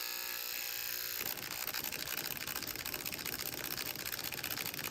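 HO scale Bachmann/Mehano GP18 diesel locomotive running on its stock motor: a small electric motor and gear whine that turns into a rougher, fast rattling buzz about a second in. It is the sound of the cheap original motor that the owner says makes the loco run poorly.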